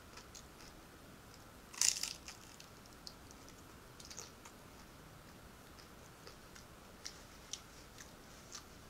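Mouth sounds of eating: a bite into a crisp fried vegetable spring roll crunches loudly a little under two seconds in, followed by chewing with scattered soft clicks.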